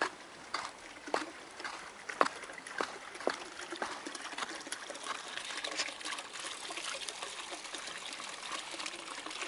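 Footsteps crunching through snow, about two a second, for the first few seconds. Then a steady fine crackling trickle of water takes over.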